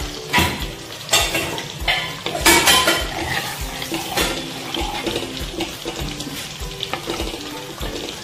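Metal ladle stirring and scraping in a pot of simmering curry, with several louder scrapes in the first half. Background music with a steady beat runs underneath.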